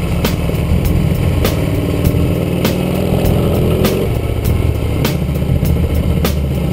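Harley-Davidson Road King's V-twin engine running on the move, with background music keeping a steady beat over it.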